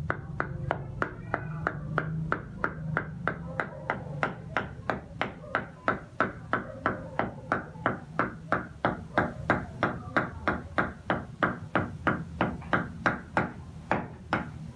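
A cleaver chopping and mincing raw meat on a round wooden chopping board, in a steady rhythm of about three chops a second.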